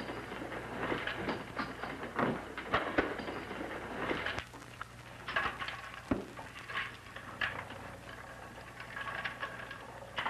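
Scattered light clicks, taps and rustles at irregular intervals over the steady low hum of an old film soundtrack.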